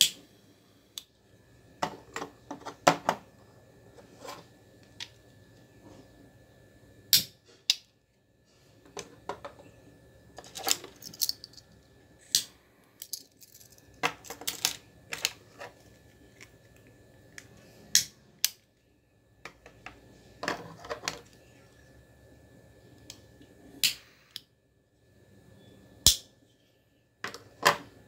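Metal novelty lighters being handled and set down on a tabletop: scattered sharp clicks and clacks, some in quick clusters, with a light jingle of keyring rings.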